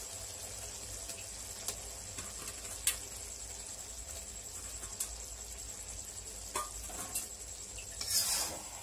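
Idli pieces in tomato-onion chilli masala sizzling quietly in a kadai, with scattered small pops and clicks. A brief scrape of the spatula comes near the end.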